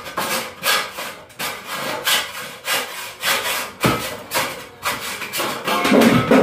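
Hand saw cutting through a wooden board: steady back-and-forth strokes, about three a second, getting louder and heavier near the end.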